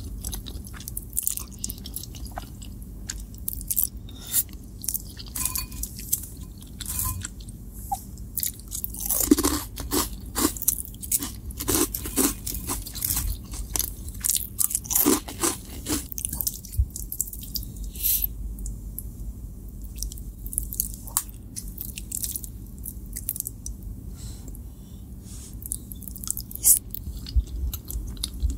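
Close-miked mouth sounds of eating: chewing and slurping spaghetti carbonara, then crisp crunching of cheese-coated corn puffs, with the densest run of crunches in the middle. Chewing of the noodles resumes near the end.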